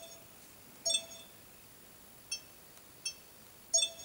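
Sony AX43 camcorder's touch-panel operation beeps as menu buttons are tapped: four short electronic chirps under a second apart, the middle two fainter.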